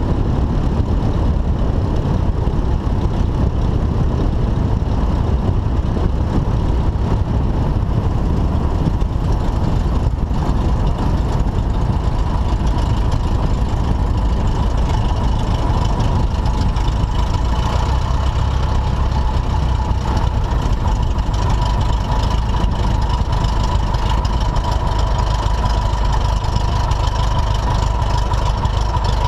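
Piper Super Cub's engine running steadily at low power through the landing rollout and taxi, with a loud steady low rumble. A thin steady whine becomes clearer about halfway through.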